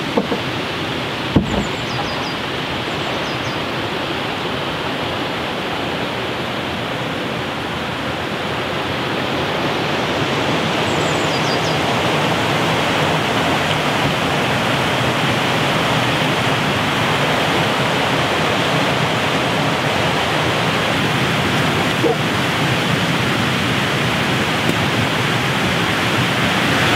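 Water pouring over a stepped river weir: a steady rushing that gets louder about a third of the way in as the weir comes closer.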